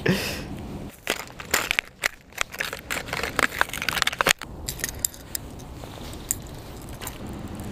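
Plastic lure packaging crinkling and crackling as it is handled and torn open: a quick, irregular run of sharp rustles and snaps for a few seconds that stops about two-thirds of the way in, leaving a steady background hiss.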